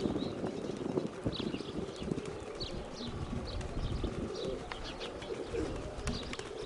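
Domestic pigeons cooing, with short high chirps of small birds scattered throughout and an uneven low rumble of wind on the microphone.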